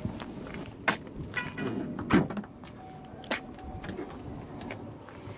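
A car tailgate being unlatched and lifted open. A sharp click comes about a second in, a heavier thump with a short rattle a second later, and another click after that.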